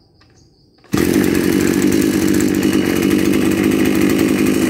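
Maruyama BIG M KC230RS-1 brush cutter's 23cc two-stroke engine starting abruptly about a second in and running loud and steady.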